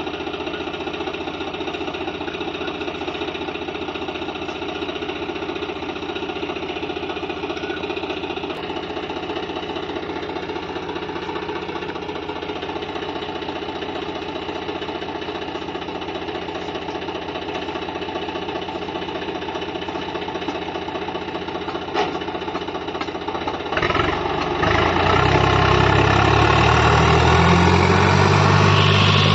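Swaraj 744 FE tractor's three-cylinder diesel engine idling steadily. About 24 seconds in it grows louder and deeper as it is revved up to pull away with a loaded trolley.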